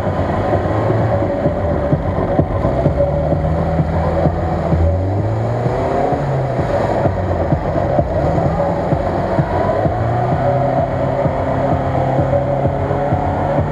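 Chevrolet Niva's four-cylinder petrol engine revving up and down under load as the SUV pushes through a deep, water-filled mud rut. Mud and water splash around the wheels.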